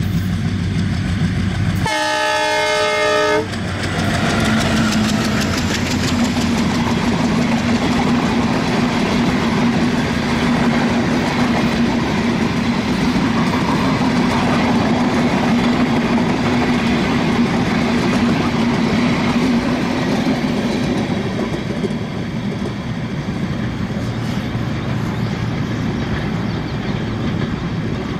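ALCO WDM-3A diesel-electric locomotive passing with an express train: a horn blast of about a second and a half, two seconds in, then the engine's steady chugging drone as it goes by. The coaches follow, rumbling and clattering over the rail joints, easing slightly toward the end.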